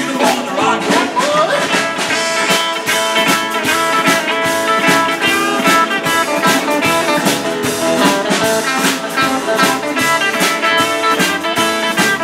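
Live band playing an instrumental passage on electric guitar, acoustic guitar, upright double bass and drum kit, with a steady beat.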